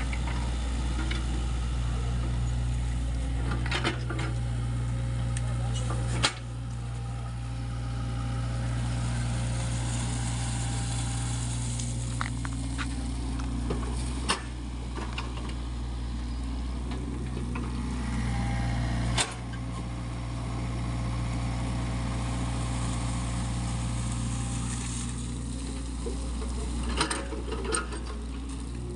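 Sany SY55C mini excavator's diesel engine running steadily while the machine digs mud, with a few sharp knocks scattered through, the loudest about six seconds in and again near 14 and 19 seconds.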